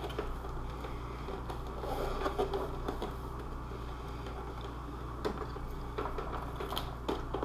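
Hands handling and pressing glued pieces of a shin piece into place: scattered small taps and rustles, with a few sharper clicks in the last couple of seconds, over a steady low electrical hum.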